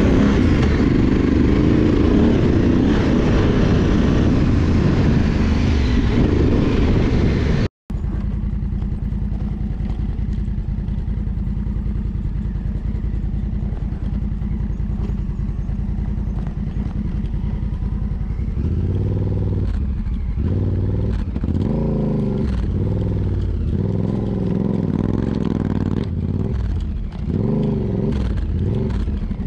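Adventure motorcycle engine running under way on a dirt trail, loud, with wind and road noise. About 8 s in the sound cuts abruptly to a steadier, lower engine drone. From about two-thirds of the way through, the revs rise and fall repeatedly, as on a climb.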